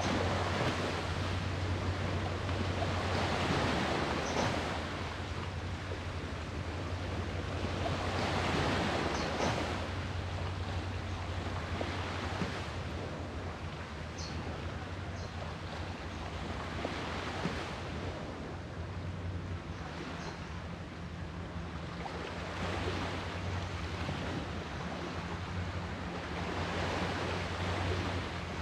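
Sea waves breaking on the shore, swelling and fading every few seconds, over a steady low hum.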